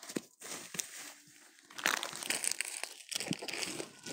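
Close crinkling and rustling with scattered small crackles and clicks, irregular throughout.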